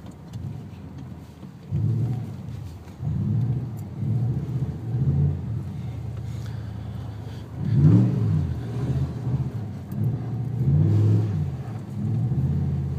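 Vehicle engine revving in repeated surges, about ten in all, with the biggest rev rising and falling in pitch about eight seconds in. The revs are being used to spin the wheels and slide the vehicle sideways on snow.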